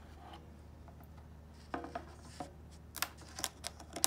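Paper pages of a hardcover picture book being handled and turned: quiet at first, then soft paper rustles from about halfway and a series of short crisp ticks near the end, over a low steady hum.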